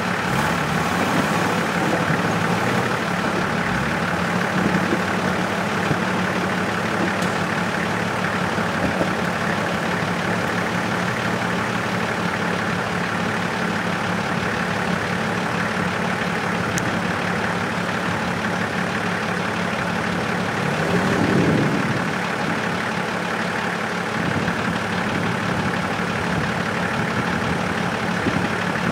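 4x4 off-road vehicle engine running steadily, with one brief rise and fall in revs about two-thirds of the way through.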